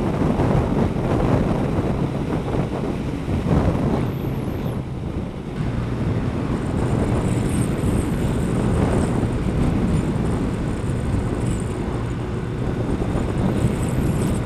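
Wind buffeting a motorcycle-mounted microphone at road speed, over the steady drone of a Kawasaki ZZR1200's inline-four engine cruising.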